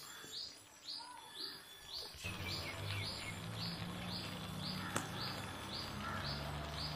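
A bird repeats a short high chirp about twice a second, with other birds calling lower. About two seconds in, a steady hiss with a low hum joins it, and there is a single sharp click about five seconds in.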